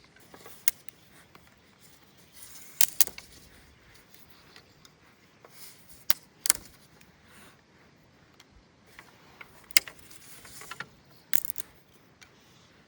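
Irregular sharp clicks and snaps, loudest about three, six and a half, and ten seconds in, over a quiet background.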